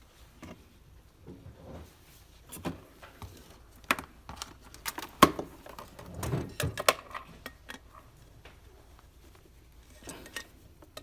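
Irregular clicks, taps and light clatter of parts and cables being handled on a workbench, busiest a little past the middle with one sharp knock.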